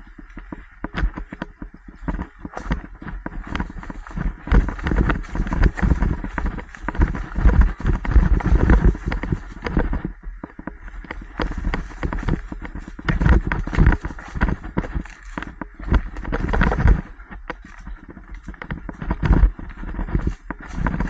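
Mountain bike riding a rough dirt trail, heard from a helmet-mounted camera: many knocks and rattles from the bike jolting over the ground, over an uneven rumble of wind on the microphone that swells and fades.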